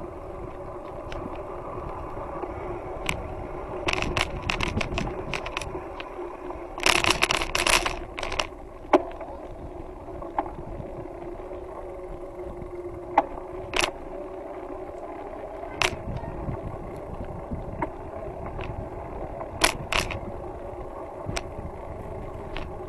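A bicycle rolling with a steady hum from its tyres, while the bike and its handlebar-mounted camera rattle and click over bumps in the path and the wooden bridge planks. There is a loud burst of clattering about seven seconds in.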